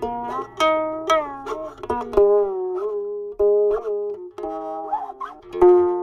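Guqin (seven-string Chinese zither) played solo: about ten plucked notes in a slow melodic line, several of them sliding in pitch as they ring, made by the left hand gliding along the string after the right hand plucks.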